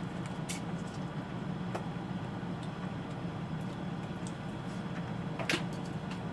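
Crab shells being cracked and picked apart by hand and teeth: a few scattered small clicks and cracks, the sharpest about five and a half seconds in, over a steady low hum.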